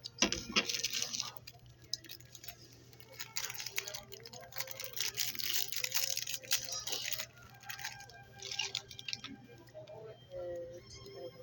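Bursts of rustling and clicking handling noise, in three spells: near the start, through the middle and once more near the end, with faint music underneath.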